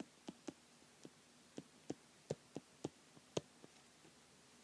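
About a dozen light, irregular clicks over a quiet background, the loudest a little past three seconds in.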